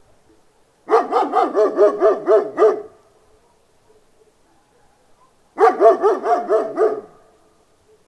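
A big dog barking in two quick bouts, about four barks a second: one starting about a second in, the other near the end.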